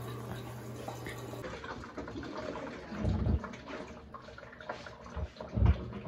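Water running into the drum of an Electrolux Premium Care 17 kg top-loading washing machine as it fills. Two dull low thumps sound, about three seconds in and near the end.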